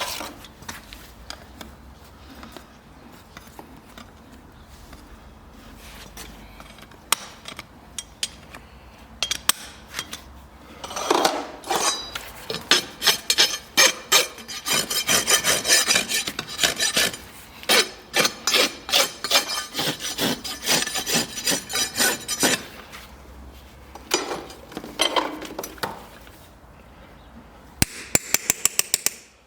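Farrier's rasp filing a horse's hoof wall: rapid back-and-forth rasping strokes, about two a second, for about ten seconds starting a third of the way in, then two shorter bouts near the end.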